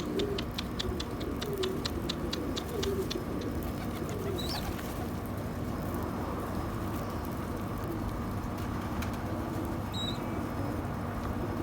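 Domestic pigeons cooing, low and wavering. A quick run of clicks sounds through the first three seconds, and two short high chirps come about four seconds in and near the end.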